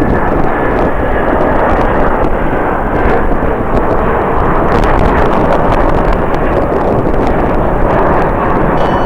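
Jet airliner engine noise, a loud steady rush, mixed with strong wind buffeting the microphone.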